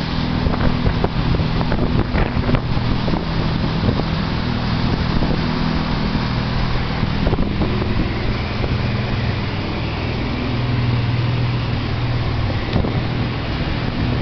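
Boat motor running steadily under way through rough, choppy water, with wind rushing over the microphone and water splashing around the hull.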